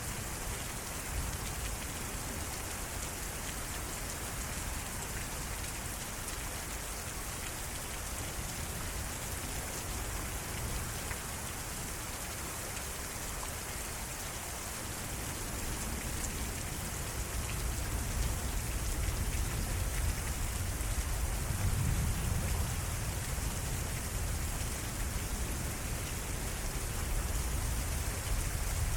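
Heavy thunderstorm rain pouring steadily as a constant hiss. A low rumble of thunder builds in the second half and swells again near the end.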